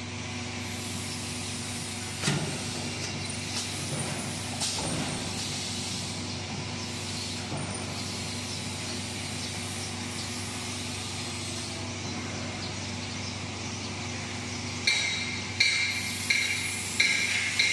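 Blanket roll packing machine running with a steady motor hum and hiss, with a couple of knocks from its rollers early on. Near the end a run of sharp, ringing strikes begins, louder than the machine.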